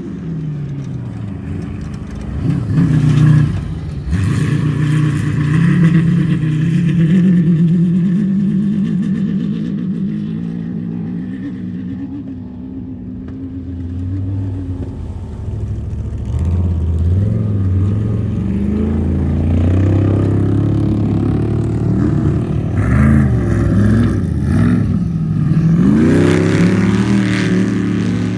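Class 10 off-road race car engines revving hard, the pitch repeatedly climbing and dropping as the throttle opens and closes. The loudest burst is about three seconds in, and there are quick rising sweeps again near the end.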